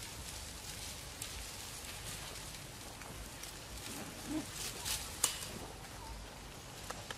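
Dry leaf litter crackling and rustling under a macaque's feet over a steady background hiss, with a cluster of sharper clicks and crackles about four to five seconds in.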